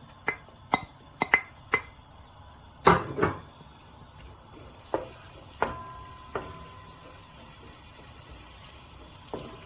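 Cookware and utensils clinking and knocking: a string of sharp taps on a pan and bowl, the loudest about three seconds in, a few of them ringing briefly.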